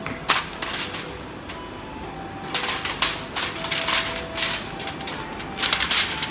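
Aluminium foil crinkling in irregular short bursts as hands press and tuck it around a whole fish, the loudest bursts just after the start and near the end.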